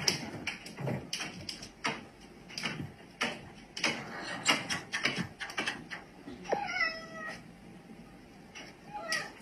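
A domestic cat meowing: one drawn-out, slightly falling meow about two-thirds of the way through and a short one near the end, among scattered knocks and clicks.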